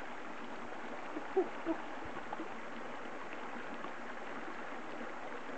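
Steady rush of a shallow creek running over rocks, with two brief low sounds about a second and a half in.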